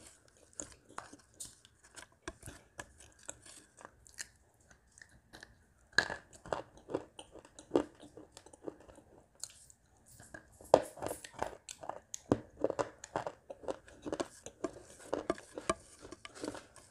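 Crunching and chewing of crunchy baked clay pieces coated in wet clay paste, with wet mouth sounds. Sparse and soft at first, with a burst of loud crunches about six seconds in, and dense, louder crunching from about eleven seconds in.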